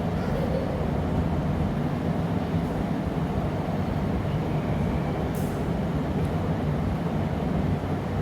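Steady low roar of a glassblowing workshop's gas-fired furnace and glory hole burners. A brief high hiss comes about five and a half seconds in.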